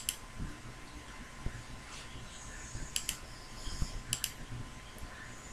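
A few faint computer mouse clicks, the clearest about three seconds in and again about a second later, over a quiet room hiss with a thin steady whine.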